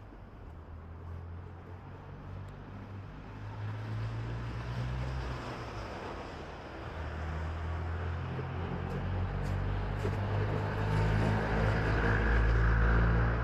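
Motor vehicle engine drawing closer with a low hum, growing louder and loudest near the end, with street noise.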